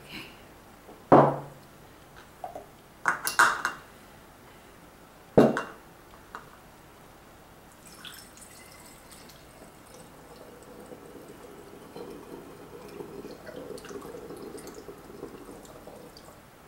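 A few sharp knocks and clinks of kitchenware in the first few seconds. Then, from about eight seconds in, vinegar pours steadily from a measuring jug through a funnel into a glass bottle, growing slowly louder.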